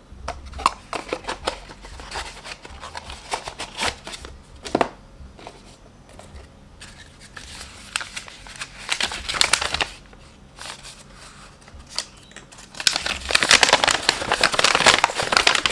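Scattered light clicks and rustles of packaging being handled, then near the end a folded paper instruction leaflet unfolded by hand with a loud, dense crinkling of paper.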